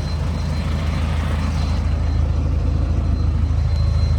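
Hitachi ZX250LC-5 excavator's six-cylinder Isuzu diesel engine idling steadily, with a faint high whine over the low drone, growing slightly louder toward the end.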